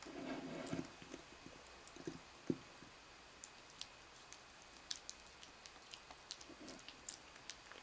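Kitten eating soft food from a small ceramic bowl: faint, quick wet clicks and smacks of chewing and licking. A short low-pitched sound comes in the first second, and one sharper tap about two and a half seconds in.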